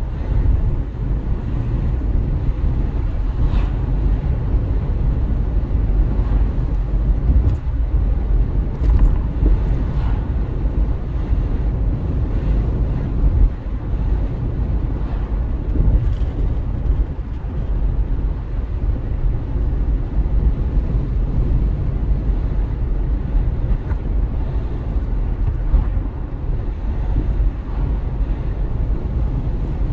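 A car driving at a steady speed, heard from inside the cabin: continuous low engine and road rumble, with a few faint clicks here and there.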